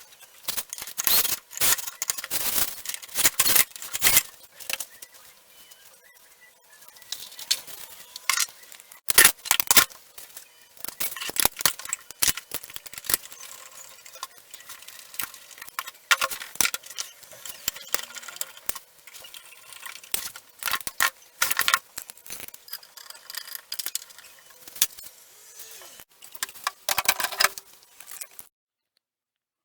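Irregular clicks, knocks and rattles of flat-pack desk parts and hardware being handled during assembly, quieter for a couple of seconds about five seconds in, and cutting off suddenly near the end.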